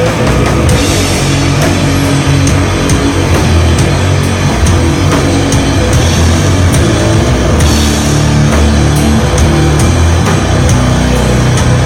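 A live doom metal band playing loud: heavily distorted electric guitars and bass holding long low notes over a slow beat of drums and crashing cymbals.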